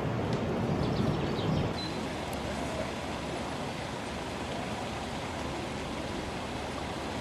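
Steady outdoor background noise: an even hiss with no distinct events, with a few faint clicks and some low rumble in the first two seconds. The sound changes abruptly about two seconds in to a quieter, even hiss.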